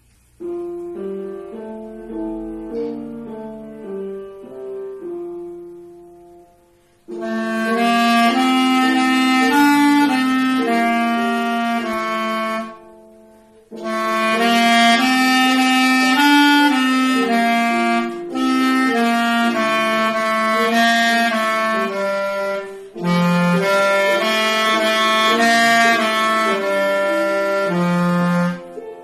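Clarinet playing a folk-song melody in loud phrases with short breath pauses, after a quieter opening of about seven seconds.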